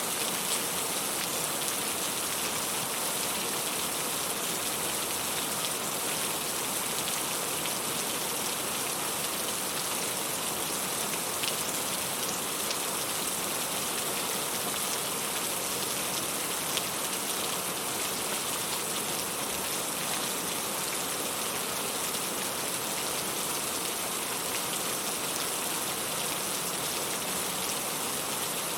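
Steady rainfall, a dense even patter and hiss, with a few faint clicks that may be fire crackles.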